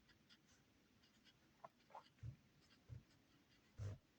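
Faint writing sounds: a couple of short squeaks about a second and a half in, then a few soft knocks, against near silence.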